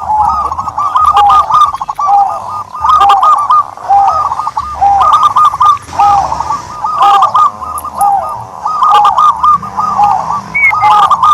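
Turtledoves cooing loudly: quick runs of short rising-and-falling notes repeated over and over, overlapping as from more than one bird.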